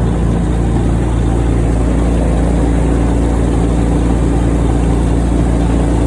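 Engine of a small restored Wells Mobile car running steadily, just brought back to life.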